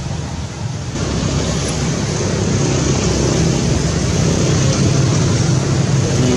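A motor vehicle engine running close by: a steady low hum under a loud rushing noise that grows louder about a second in.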